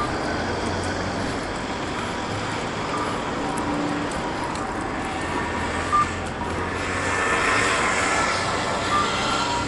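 Steady city road traffic, with a passing vehicle swelling louder near the end and two brief beeps, about six and nine seconds in.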